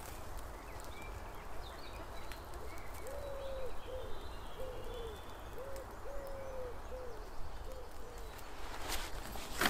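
A pigeon cooing: a run of about eight low coos, some long and some short, beginning about three seconds in, with faint chirps of small birds above it. A brief rustle near the end.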